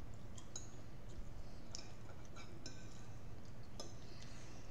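Quiet eating sounds: metal forks clicking and scraping lightly against plates, a scattering of short separate clicks over a low steady hum.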